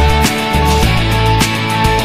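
Background rock music with electric guitar, bass and a steady drum beat.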